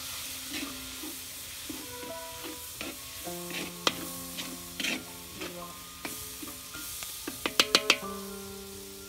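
Banana stem curry sizzling in a pan while being stirred, with scattered scrapes and knocks and a quick run of about five sharp knocks a little after seven seconds in. Background music with held notes plays alongside.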